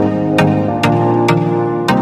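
Background music with a steady beat, about two beats a second, over held synthesizer-like tones.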